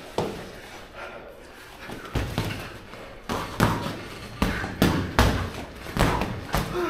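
Boxing gloves landing punches during close-range sparring: a string of about eight irregular dull thuds, the loudest in the second half.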